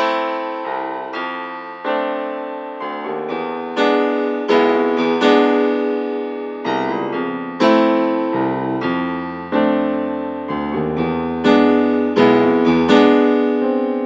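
Background music: keyboard chords struck one after another, a new chord every second or less, each ringing and fading.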